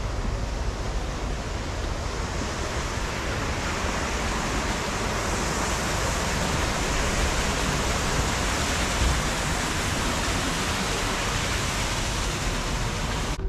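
A steady rushing noise, deep and hissing at once, swelling slightly in the middle and cutting off suddenly at the end.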